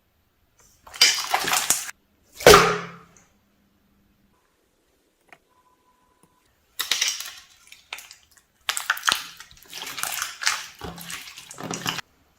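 Water poured and splashing into a container in several short bursts, with brief pauses between them.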